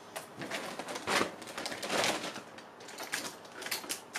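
Clothing and plastic packaging being handled, putting one garment down and picking up the next: irregular rustling and crinkling with light clicks, loudest about one and two seconds in.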